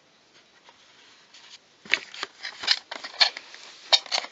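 Packaging being handled and pulled off, faint at first, then a run of sharp, irregular crinkles and crackles from about two seconds in.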